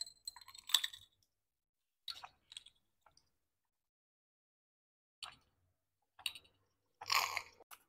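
Close-miked drinking sounds: sips through a drinking straw and swallows, heard as a handful of short separate bursts with pauses between, the longest near the end.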